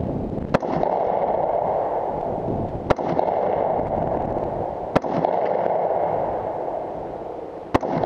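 Four rifle shots from a scoped AR-pattern rifle fired out of a truck's window, one every two seconds or so, over a steady rushing noise.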